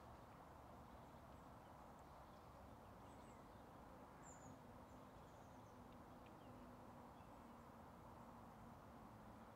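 Near silence: faint open-air meadow ambience with a few faint high chirps about three to four seconds in, and a faint steady low hum from about three seconds on.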